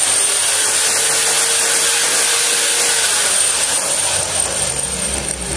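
Makita GA6010 150 mm angle grinder free-running with no load, a steady high-pitched whine over its motor and fan noise. It runs quite smoothly.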